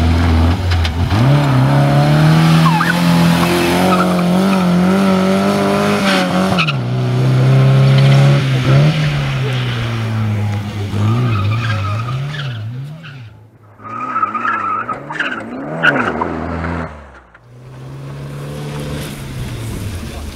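Skoda 105 rally car's engine revving hard under acceleration. The revs climb, drop back at a gear change about a second in and again about six seconds in, then rise and fall quickly over and over, with tyre squeal. The engine note dips sharply twice in the second half.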